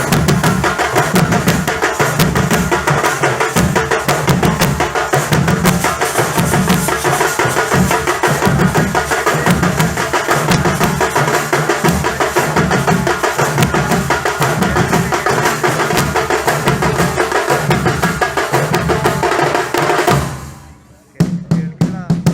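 Nasik dhol ensemble drumming: deep dhol beats at about two a second under rapid, sharp tasha stick strokes, in a steady loud rhythm. Near the end it dies away for about a second, then the drums strike up again.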